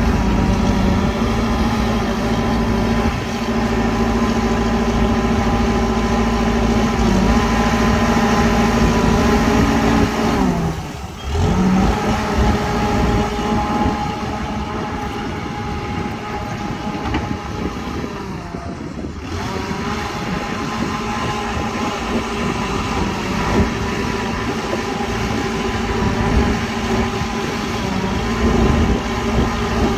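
Diesel engine of heavy earthmoving machinery running steadily under load, its note briefly sagging and dropping out about eleven seconds in before picking up again.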